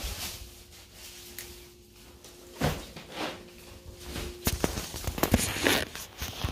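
Handling noise from a hand-held phone being swung about: scattered knocks, bumps and rubbing, sparse at first and coming thicker in the second half. A faint steady hum sounds under the first part.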